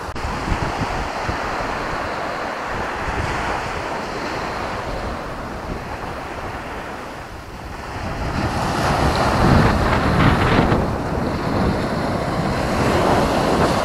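Surf washing in on a sandy beach, with wind buffeting the microphone. The wash swells louder about two-thirds of the way through as a wave breaks.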